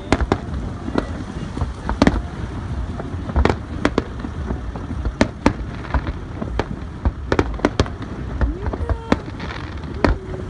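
Aerial fireworks bursting: an irregular series of sharp bangs, some in quick pairs, over a low rumbling background.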